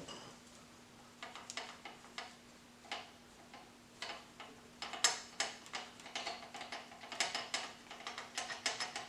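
Hand ratchet wrench clicking as a cylinder-head bolt is backed out of a 3.8 L V6. Short runs of clicks come from about a second in, then quicker, denser runs from about five seconds in.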